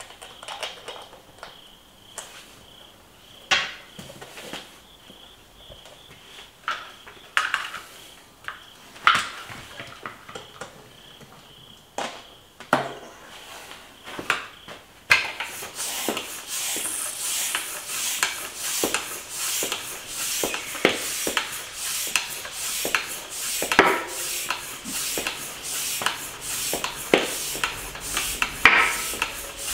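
A few knocks and clicks as the wheel and pump are handled. About halfway in, rapid repeated pump strokes begin, with a hiss of air, as a tubeless gravel tire is inflated to seat its bead without a compressor.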